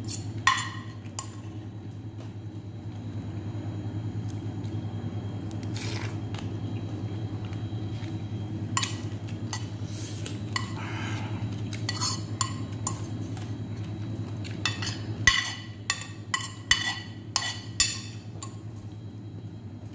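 A metal spoon clinking and scraping against a ceramic plate as the last of the dressing is scooped up. The clinks are scattered at first and come thick and fast in the last few seconds, over a steady low hum.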